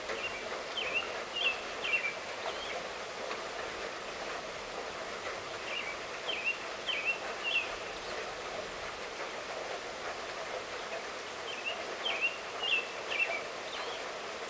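Steady light rainfall, with a songbird singing a short phrase of quick chirps three times, about six seconds apart.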